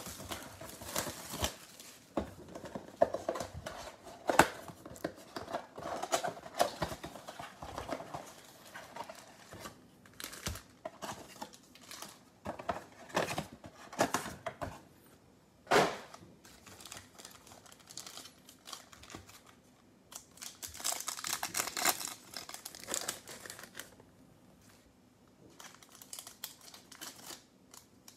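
Plastic wrap on a trading-card box crinkling and tearing as the box is unwrapped and opened, then foil card packs rustling as they are handled. A single sharp knock comes a little past halfway, and a longer stretch of rustling follows a few seconds later.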